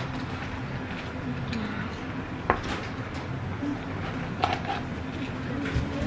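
Eating and handling food and packaging at a table: small clicks and taps from paper food boxes and plastic-lidded soda cups, one sharp tap about two and a half seconds in and a few more around four and a half seconds, over steady room noise.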